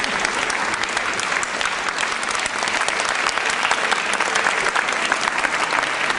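Audience applauding: many hands clapping steadily in a dense, even patter.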